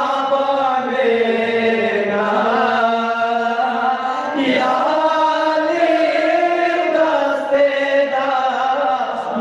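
Unaccompanied chanted singing of a Balti qasida, a devotional poem, in long held melodic lines that slide up and down in pitch.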